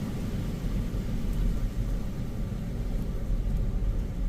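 Strong gusting wind buffeting the phone's microphone: a steady, uneven low rumble.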